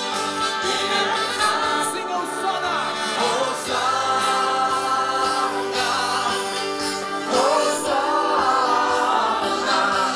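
A large open-air crowd singing a Christian worship song together, with the band's music carried over the stage loudspeakers.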